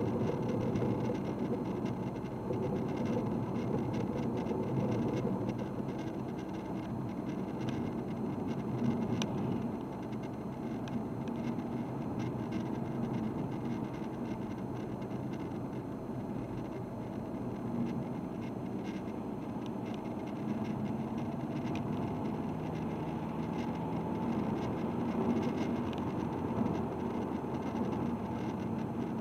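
A vehicle running steadily, an even low rumble with no rise or fall in pitch.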